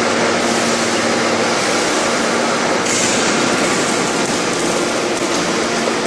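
Steady, loud industrial din of a big hydraulic open-die forging press and its hydraulic power units running, with faint steady hum tones underneath. A brief, sharper hiss comes about halfway through.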